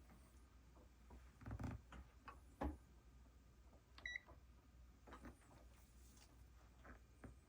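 Quiet bench work: a few soft knocks and clicks from handling small parts and tools, the loudest about two and a half seconds in, and one short high electronic beep about four seconds in.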